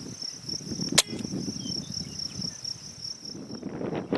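A single sharp shot from an Air Arms Galahad .22 pre-charged air rifle about a second in, over a steady pulsing chirp of insects in the grass and low wind noise on the microphone.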